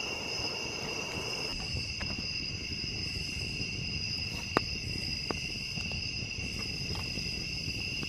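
Crickets chirping in a steady chorus, over the low crackle of a log campfire with a sharp crack about four and a half seconds in.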